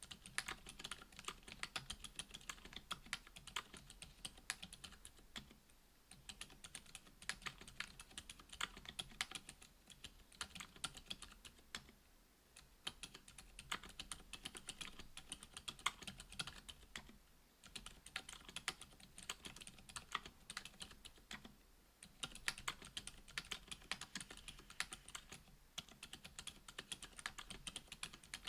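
Fast continuous typing on a mechanical keyboard with lubed Gazzew U4 Boba silent tactile switches (62 g) and GMK keycaps on an FR-4 plate: a dense patter of soft, damped keystrokes, with short pauses every few seconds.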